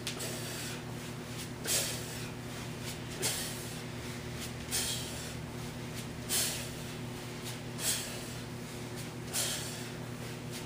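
Sharp, hissing forced exhalations from people doing kettlebell swings, one breath per swing, about every second and a half, over a steady low hum.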